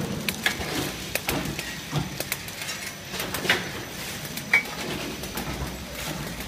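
Plastic cup counting and flow-wrapping machine running: irregular clicks and clacks over a low steady hum, with one sharper click about four and a half seconds in.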